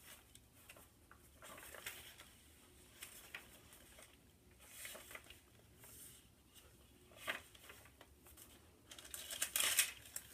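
Faint rustling of the paper pages of a handmade junk journal being turned and handled, in short scattered bursts that grow busier near the end.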